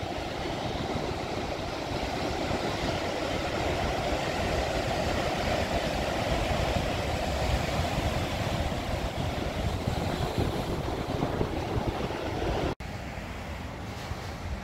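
Heavy storm surf crashing and churning in a continuous rush, with wind on the microphone. Near the end it cuts abruptly to a quieter stretch of surf.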